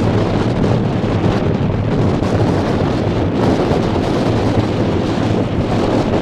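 Strong wind buffeting the microphone, a loud steady rumble with small gusty swells, over a steady low hum.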